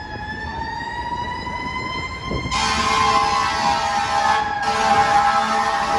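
Fire truck's siren wailing as the rig comes in, its pitch sliding slowly down and back up, then about two and a half seconds in the air horns blast: a loud, steady blare of several tones, broken briefly a couple of seconds later.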